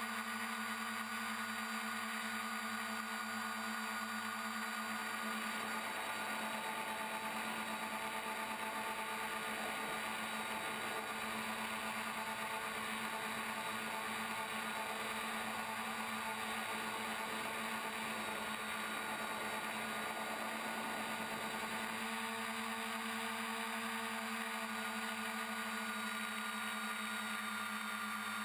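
FPV tricopter's electric motors and propellers whirring steadily, heard from the camera on board, with a fixed hum. A rougher, hissier stretch joins in from about five seconds in until about twenty-two seconds.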